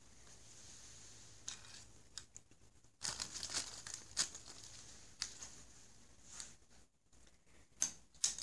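Crinkly nylon fabric of a cat play tunnel rustling in short irregular bursts as a cat shifts and pounces inside it. It is busiest from about three seconds in, with two sharp rustles near the end as the cat springs out.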